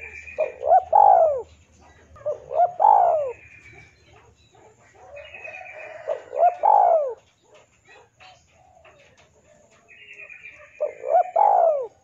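Spotted dove cooing four times, each phrase two short notes followed by a longer falling coo. Fainter chirping of small birds sits behind it.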